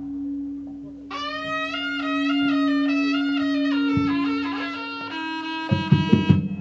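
Jaranan music starting up: a reedy wind instrument, the slompret (Javanese shawm), plays a wavering melody over a long-held low tone. Drum strikes come in near the end.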